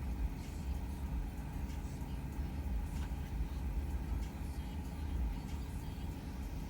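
A steady low rumble, with a few faint light taps.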